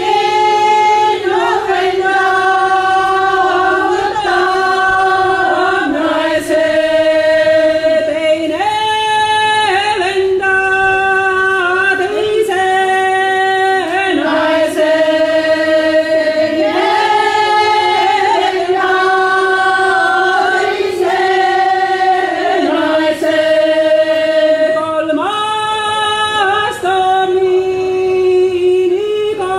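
A group of mainly women's voices singing a folk song unaccompanied, in two parts, on long held notes that step from one pitch to the next every second or two.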